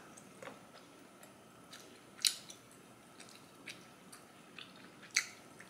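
A person quietly eating hot Korean spicy rice cakes (tteokbokki): faint chewing with a few short sharp clicks and smacks, the two loudest about two and five seconds in.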